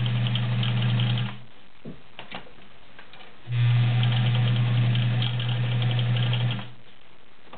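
All-metal Kenmore 1217 sewing machine with a 1-amp motor, stitching through a couple of layers of leather with a size 16 needle. It runs in two bursts, a steady motor hum under fast needle ticking: the first stops about a second in, and the second runs for about three seconds from the middle. A few faint clicks fall in the pause between them.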